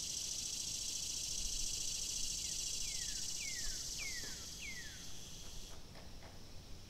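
Outdoor nature ambience: a steady high-pitched insect chorus, with a series of about five short falling whistled notes, like a bird call, half a second apart in the middle. The chorus cuts off abruptly about six seconds in, leaving only faint ticks.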